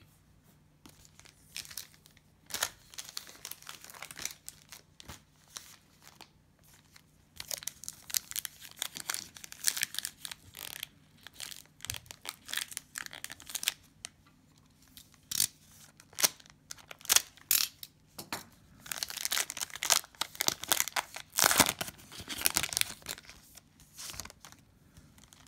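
Cellophane wrapper of a trading-card cello pack being torn and crinkled while the cards are handled, in irregular bunches of crackling that are loudest near the end.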